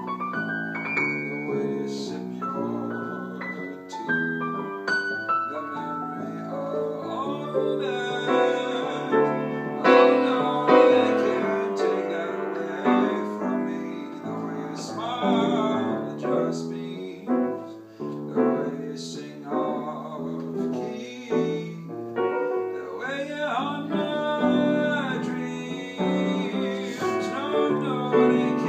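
Piano music with a voice singing over it; the singing comes in about eight seconds in.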